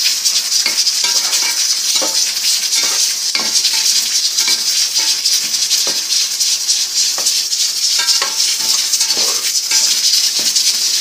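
Onions and ginger-garlic paste sizzling in a metal pot while a flat metal spatula stirs and scrapes against the pot, giving irregular clinks and scrapes over a steady high hiss. The hiss of a running pressure cooker's steam is mixed into the steady noise.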